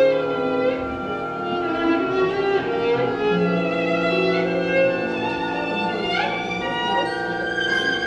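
Solo violin playing sustained, overlapping notes in a concerto, with the orchestra quietly underneath.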